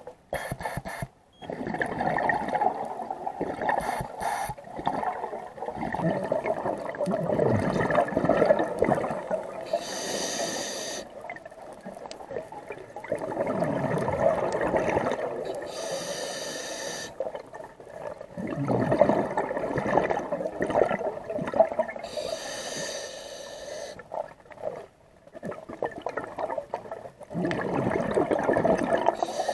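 A scuba diver breathing through a regulator underwater: each breath is a short hiss on the inhale followed by a few seconds of bubbling, rumbling exhaust, about one breath every six seconds, four breaths in all.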